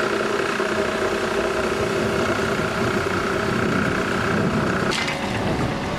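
An engine running steadily with a constant pitch. About five seconds in, the sound changes abruptly to a quieter, similar engine sound.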